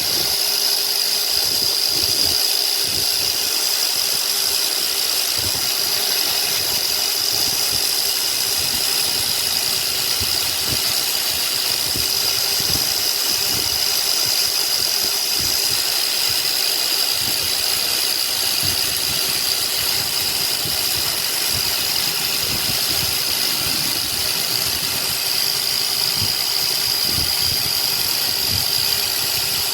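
A small motor running steadily at an even pitch, with a constant high whine over a scratchy, rattling low end.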